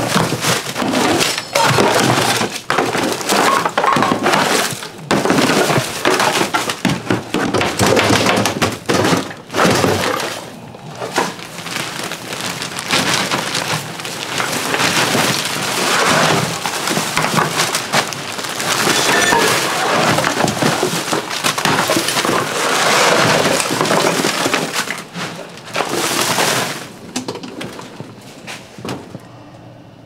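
A shovel scraping across a tiled floor and scooping piled household trash, with plastic bags, boxes and bottles rattling and clattering in a dense run of knocks and scrapes that eases off near the end.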